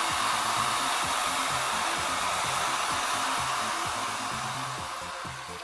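Handheld hair dryer running steadily, a rushing blast of air aimed at a sheet of paper to dry it; the rush fades near the end.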